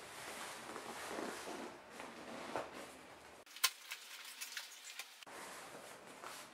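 Cardboard box being handled: rubbing and scraping of the paperboard, then a few sharp clicks and taps near the middle, the first the loudest.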